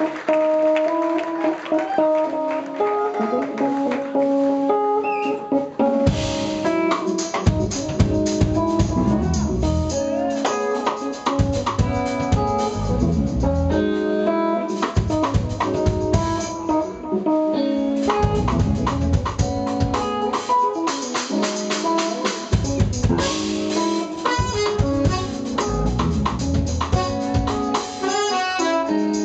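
Live jazz-fusion band: keyboards and electric guitar hold chords alone for about six seconds, then the drum kit and bass come in with a steady groove. Saxophone and trumpet join near the end.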